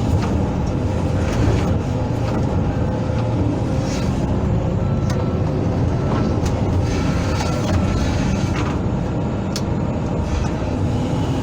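Hydraulic excavator's diesel engine running steadily under work while it digs out a ditch, with a few short sharp clicks along the way.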